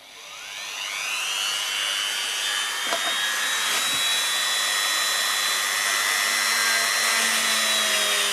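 Electric drill starting up, its motor whining up to speed within about a second and then running steadily while drilling holes in a piece of formed HDPE plastic.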